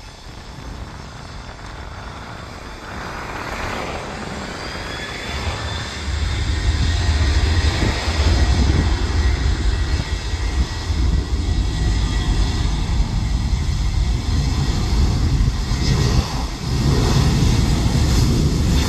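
Boeing 737-800 jet engines spooling up to takeoff power: a rising fan whine, then a loud, steady low rumble from about six seconds in as the takeoff roll begins.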